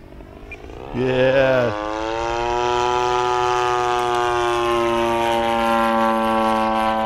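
Engine of a one-third-scale RC model plane in flight. After a quieter first second it opens up sharply, then runs steadily at high power with its pitch slowly sinking.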